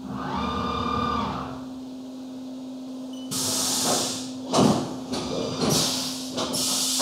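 Haas UMC 750 SS five-axis CNC mill between cutting operations. A steady machine hum runs under a short whine that rises and falls in the first second and a half. From about three seconds in come irregular bursts of hissing.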